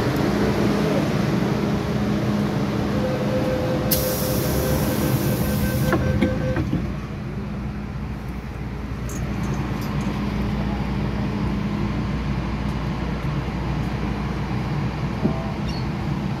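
Interior of an MTR M-Train electric multiple unit running along the line: steady rumble of wheels and motors, with a steady hum from the drive. About four seconds in a high hiss cuts in for two seconds, and the overall noise eases a little soon after.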